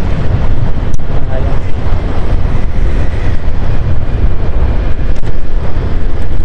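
Steady wind rumble buffeting a helmet-clipped microphone on a moving Honda scooter, with the scooter's engine and road noise underneath.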